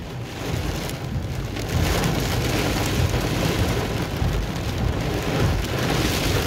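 Torrential rain drumming on a car's roof and windshield, heard from inside the cabin, with a low rumble underneath; the downpour gets louder about two seconds in.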